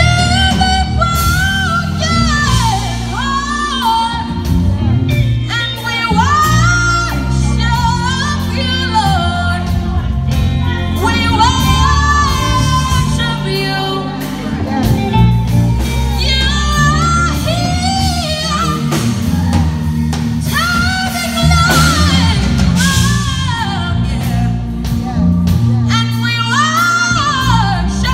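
Live gospel band with a lead singer: sliding, ornamented vocal runs over drums, electric bass and keyboard, played loud through microphones and speakers.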